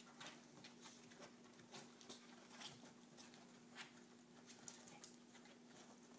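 Faint, irregular rustling and soft pats of a small dog and a ferret tussling on a cushioned love seat, over a low steady hum.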